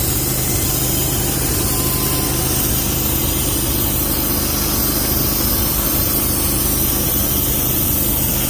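Portable band sawmill's gasoline engine running steadily at a constant speed, with a dense rushing noise over it.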